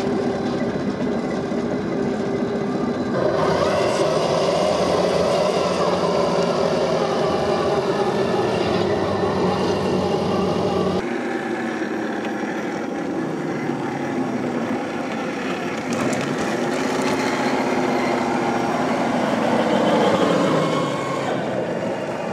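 Scale RC rock crawlers' electric motors and geared transmissions whining as they crawl, the pitch rising and falling with the throttle. The sound changes abruptly twice, about 3 and 11 seconds in.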